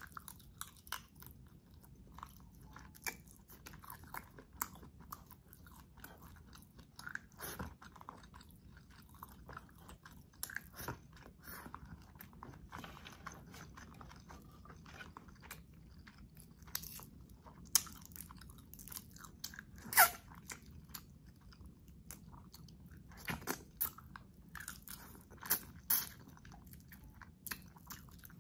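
Close-up eating sounds: biting into and chewing spicy garlic butter shrimp, with many short sharp crunches and crackles, the loudest about twenty seconds in.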